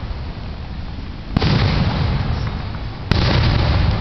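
Aerial firework shells going off: two sharp bangs, about a second and a half in and again near the end, each followed by a long rumble, over the steady rumble of earlier bursts.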